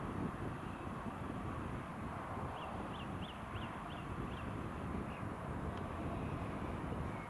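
New Holland tractor running steadily under load while ploughing. Partway through, a bird gives a quick series of about six short high calls.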